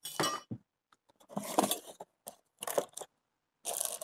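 Cardboard box and plastic wrapping being handled and opened, rustling in short irregular bursts, as a boxed tumbler holder is taken out of its packaging.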